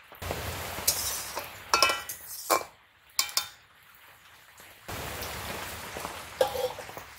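Metal spatula scraping and clanking against an aluminium kadai as red spinach (lal shak) is stir-fried, with a steady frying hiss. Four or five sharp clanks come in the first half, one of them ringing. The hiss drops away past the middle, then returns.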